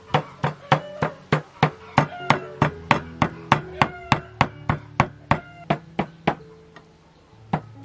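Cleaver chopping pork into mince on a wooden chopping block, even chops at about three a second, stopping about six seconds in, with one more chop near the end.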